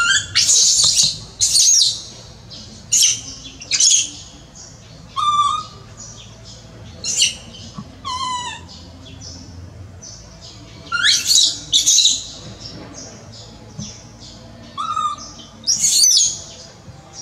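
Baby macaque crying: repeated shrill, high-pitched squealing cries that sweep up and down in pitch, in short bouts every one to four seconds.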